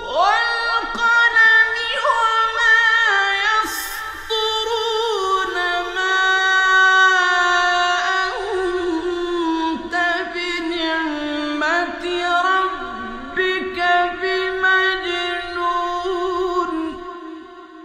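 A male reciter chanting the Quran in the ornamented mujawwad style: one voice holding long, wavering notes that slide up and down between pitches, over a faint low hum from the old radio recording. The voice and hum fade away near the end.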